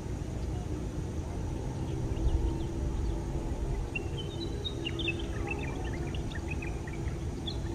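Jet engines of a Boeing 737 airliner on short final before touchdown: a steady low rumble with a faint hum. A run of short high chirps sounds over it about halfway through.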